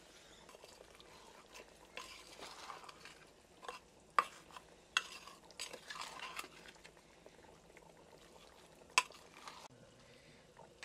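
Wet squelching of raw, spice-marinated chicken pieces being pressed and mixed by hand in a small clay pot, coming in a few short spells. Two sharp clicks stand out, one midway and one near the end.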